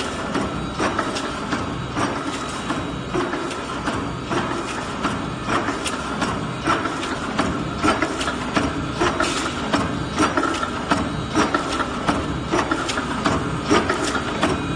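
YX-60Y vertical liquid stick-pack filling and sealing machine running: a steady mechanical hum under a quick, continuous clatter of clicks and clacks from its sealing and cutting mechanism.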